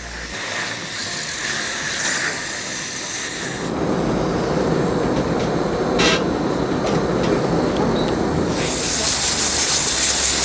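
Dental suction hissing steadily as it draws air and saliva from the patient's mouth, keeping the tooth dry for bonding the crown. The hiss gets fuller about a third of the way in and becomes louder and brighter for the last two seconds.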